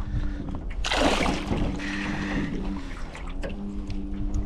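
Small northern pike splashing at the water's surface beside the boat as it is brought in, loudest about a second in. A steady low hum runs underneath.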